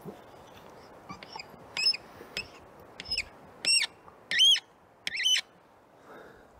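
A bird calling repeatedly: about seven short notes, each rising and falling in pitch, coming faster and louder until just past five seconds in.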